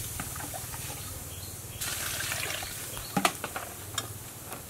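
Water trickling and splashing in a large aluminium cooking pot, then a metal ladle clinking against the pot a few times from about three seconds in as stirring begins.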